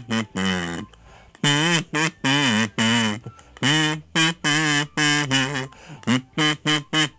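Kazoo buzzing out a pop-song melody in short hummed notes, with a brief break about a second in.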